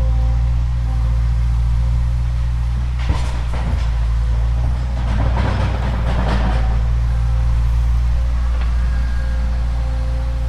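Excavator's diesel engine running steadily under load. From about three to seven seconds in there is a stretch of irregular cracking and crunching as tree roots are torn out.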